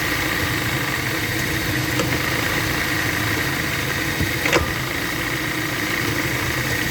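2011 Dodge Avenger engine running steadily, with sharp clicks about two and four and a half seconds in. The car has a weird front-end noise that has been traced to a failing front axle.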